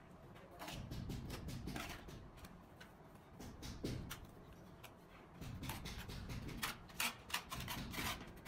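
Steel trowel scraping and patting cement mortar onto the back of a ceramic wall tile: quiet irregular scrapes and light clicks, with a few sharper taps about four and seven seconds in.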